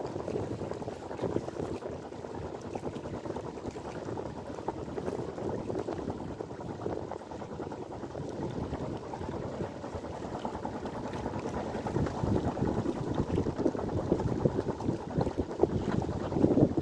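Water rushing and splashing along the hull of a sailboat under way, with wind buffeting the microphone; it grows rougher and louder in the last few seconds.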